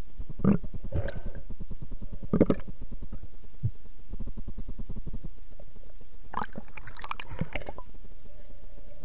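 Muffled underwater sound heard through a camera's waterproof housing: a low rumble with gurgling bursts and knocks. The bursts come about half a second in, again near one and two and a half seconds, and in a busy cluster from about six to seven and a half seconds in.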